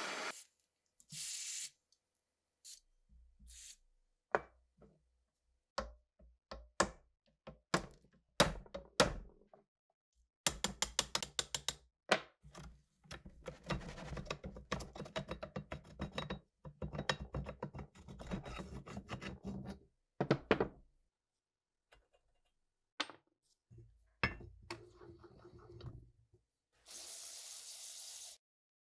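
Rusted steel parts of an old DP-27 machine gun knocked and worked by hand, giving separate clunks and taps and then long stretches of rapid rattling, grinding clicks as the seized parts are twisted back and forth. Near the end comes a short hiss of an aerosol can spraying through its straw.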